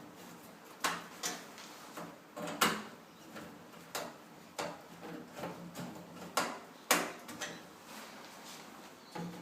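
Irregular clicks and knocks, about a dozen, some sharper than others, from parts and tools being handled during a microwave repair.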